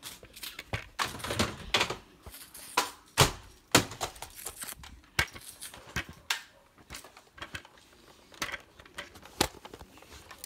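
Irregular clicks, knocks and rustling of handling, as plastic Nerf blasters are picked up and moved about.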